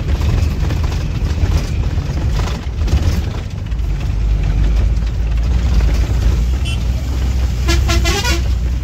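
Bus engine running with a steady low rumble while the bus climbs a rough off-road track. Near the end a horn sounds once, a short warbling honk.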